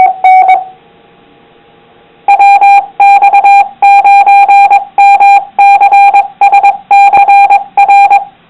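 Amateur radio repeater sending its Morse code identification: one tone keyed on and off in short and long beeps. A brief few beeps open it, then after about two seconds a longer run of Morse follows. The tone is harsh and clipped from overloading the recording.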